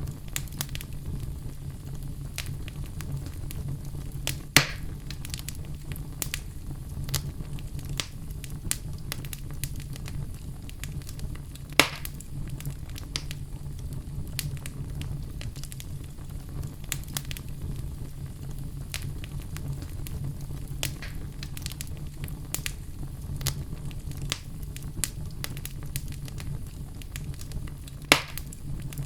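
Oak logs burning in a fireplace: a steady low rumble of flame under frequent small crackles, with three loud pops, about four seconds in, near twelve seconds and near the end.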